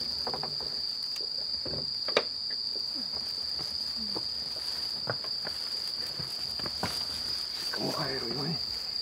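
Crickets trilling in one steady, unbroken high note. A few sharp knocks sound over it, the loudest about two seconds in, and a brief voice comes in near the end.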